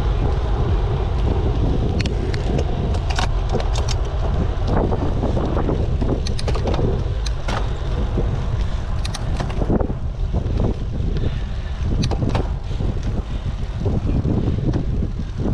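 Wind buffeting the microphone of a camera on a moving bicycle, a heavy steady rumble, with scattered clicks and rattles throughout.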